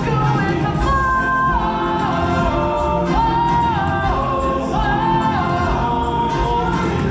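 Show tune with a group of voices singing long held notes that step from pitch to pitch over a full backing track.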